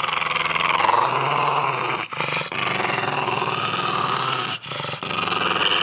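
Pug growling over the squash he is eating as a hand pets his head: long growls broken by short pauses for breath about two and four and a half seconds in.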